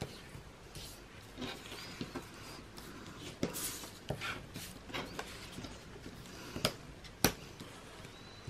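Paper rustling and scraping as folds in white card stock are pressed and creased with a bone folder, with a few sharp taps and clicks in between.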